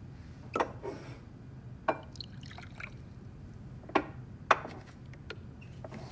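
A liquor bottle and glass tumbler being handled on a counter. There are a few sharp clinks of glass on glass and the stopper, and a short trickle of liquor being poured into the tumbler.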